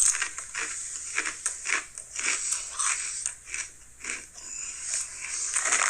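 Close-up crunching and chewing of Ruffles Queso Cheese ridged potato chips, in quick irregular crunches.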